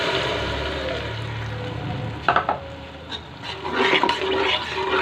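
Blended tomato, ginger and garlic paste sizzling as it hits hot ghee and fried onions in a metal pot. The sizzle fades over the first couple of seconds, then the paste is stirred and scraped with a metal spatula, with a sharp knock about two seconds in.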